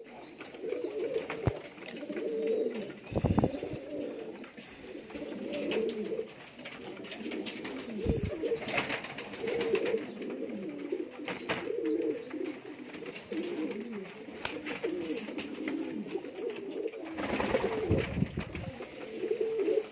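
Domestic pigeons cooing almost without a break, the low warbling coos of several birds overlapping, with a few low thumps in between.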